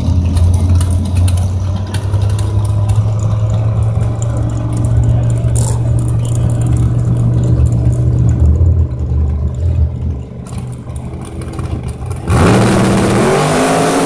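Drag-race car engine idling at the start line with a deep, steady rumble. About twelve seconds in it goes suddenly to full throttle, loud and climbing quickly in pitch, as the car launches.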